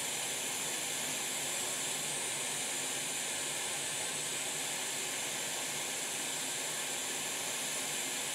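Hot air rework station blowing a steady hiss of hot air onto the motherboard to desolder an all-in-one driver/MOSFET power-stage chip, which the board's copper is slow to let go of because it is sucking away the heat.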